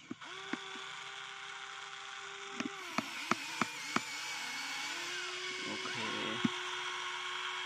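Electric motors and gearboxes of a Huina RC excavator whining as its arm and bucket move. The whine holds one steady pitch, breaks off briefly about two and a half seconds in, then starts again. A handful of sharp clicks come in quick succession around the middle.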